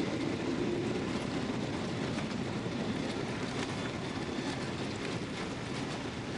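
Steady rumble inside the cabin of a Boeing 777-200ER airliner rolling on the ground, with faint rattles and clicks from the cabin fittings.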